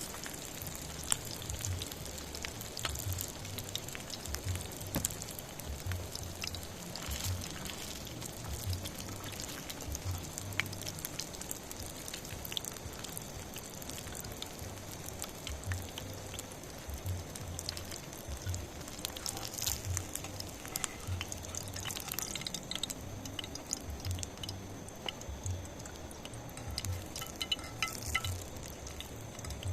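Light drizzle: scattered raindrops ticking and dripping irregularly over a steady patter, with soft low thumps recurring every second or so.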